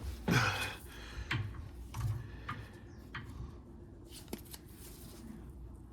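Hand-work on a tie rod boot clamp: a short scrape about half a second in, then scattered light clicks and knocks of metal tools and parts.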